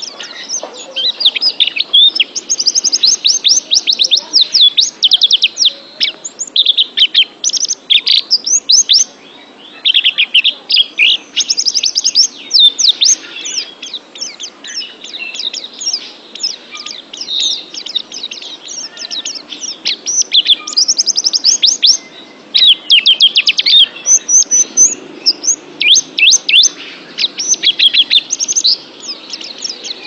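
A white-eye (pleci) singing: fast, high twittering phrases of quick down-slurred notes, coming in bursts of a second or two with short gaps between.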